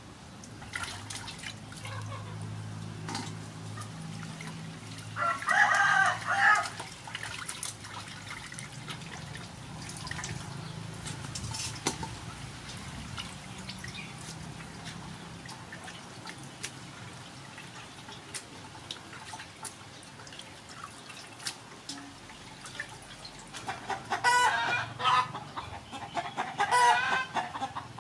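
Chickens clucking and calling, loudest about five seconds in and again in a run near the end, over water sloshing and dripping as fish pieces are washed by hand in a basin.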